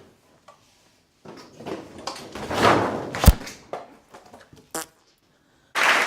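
Rustling, handling noise that builds over a second or two and ends in a single sharp thunk, followed by a few faint clicks and, near the end, a short loud breathy rush of noise.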